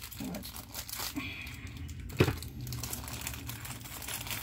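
Small plastic LEGO pieces clicking and rattling on a table as they are picked through by hand, with a plastic parts bag crinkling, and one sharper click about two seconds in.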